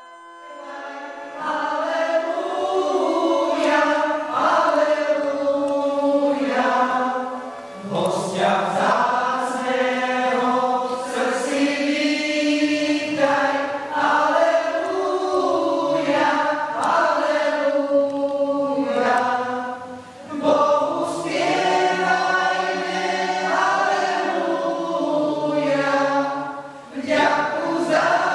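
Mixed choir of women's and men's voices singing together, starting about a second in, with brief breaths between phrases.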